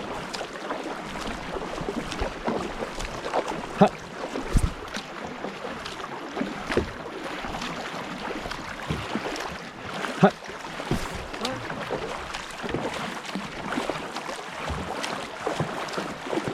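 Canoe paddles stroking through river water with splashing, over a steady wash of moving water, with a few sharper knocks about 4 and 10 seconds in.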